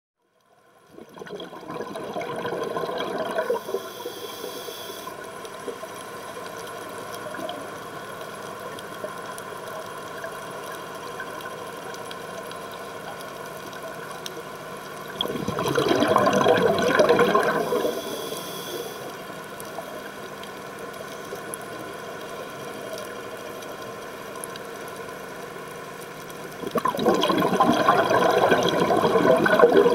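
Steady hum of a live-aboard dive boat's auxiliary engine heard underwater, holding several fixed tones. Three times, a loud rush of bubbling water swells over it for a few seconds, the diver's exhaled regulator bubbles.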